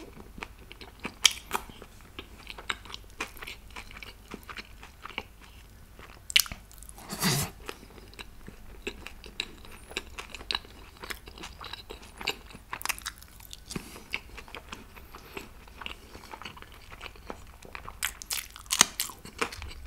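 A person eating close to the microphone: chewing and biting with many small wet clicks, with one louder, longer noise about seven seconds in and a few sharper clicks near the end.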